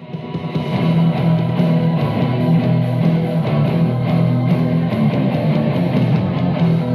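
Loud rock music with guitar and a steady, even beat.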